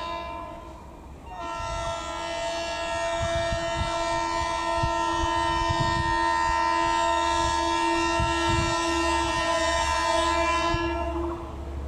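Approaching rail vehicle sounding its air horn: a brief end of one blast, then a long steady horn chord from about a second and a half in until it cuts off near the end, over a low running rumble.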